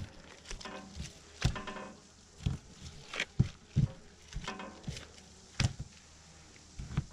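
Knife and hands working venison on a plastic cutting board: irregular short taps and knocks as the meat is cut and moved about on the board.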